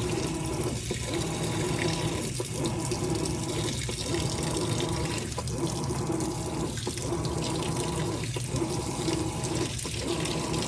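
Water pouring into the drum of a Whirlpool Cabrio top-load washer, an agitator-less machine, as it fills, over a low steady motor hum. The sound dips briefly about every one and a half seconds.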